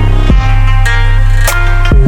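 Background music with heavy sustained bass and electronic sweeps.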